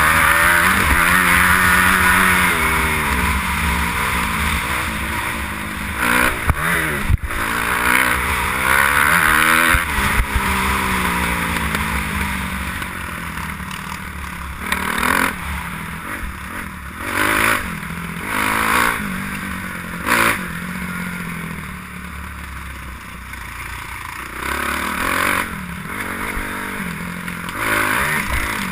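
Kawasaki KX250F motocross bike's four-stroke single-cylinder engine ridden hard on a dirt track, revs rising and falling again and again through the gears, heard from a helmet-mounted camera with wind rushing over it. In the first ten seconds or so the revs swing most; after that the engine runs lower, with several short loud bursts of throttle.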